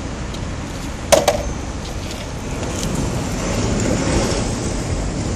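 Longboard wheels rolling over a concrete court, a low rumble that swells about halfway through as the rider comes closer. A sharp double knock about a second in.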